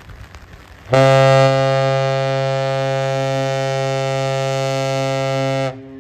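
Great Lakes freighter's horn sounding one long, steady salute blast of about five seconds, starting about a second in and cutting off sharply near the end, with a fainter tone lingering after it.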